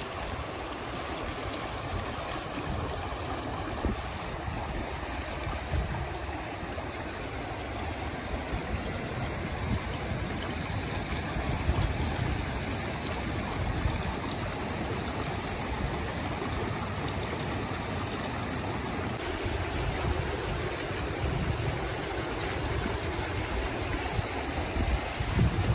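Shallow mountain stream running over rocks and boulders: a steady rush of water.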